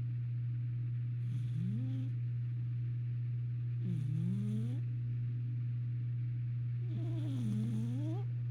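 A domestic cat snoring: three snores about three seconds apart, each a short tone that slides in pitch with a breathy hiss on top, over a steady low hum.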